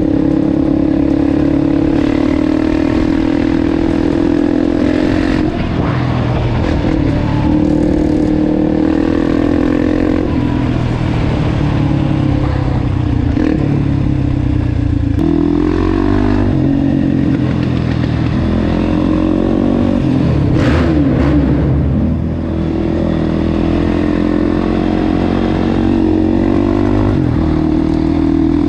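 Can-Am DS 450 quad's single-cylinder four-stroke engine running under way, heard close from the machine. The engine note rises and falls with the throttle, with a short let-off about three-quarters through.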